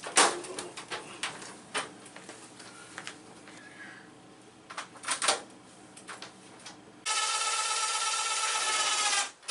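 Knocks and clatter as a microwave is worked into place under a cabinet. About seven seconds in, a cordless drill runs with a steady whine for a little over two seconds, driving a mounting screw.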